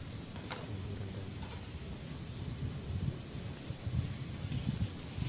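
A bird repeating a short, high call every second or two, over a low, uneven rumble, with a single sharp click about half a second in.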